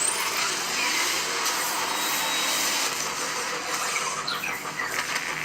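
Film-trailer sound effects: a loud, dense rushing noise with a few whooshing sweeps through it and no speech.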